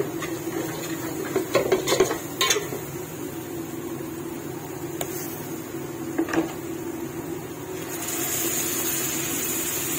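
Spatula scraping and knocking against a stainless steel pot while stirring a thick fried onion and spice masala, with a cluster of sharp scrapes a second or two in and another near six seconds. From about eight seconds in, a steady sizzling hiss as raw chicken pieces go into the hot masala, over a steady low hum.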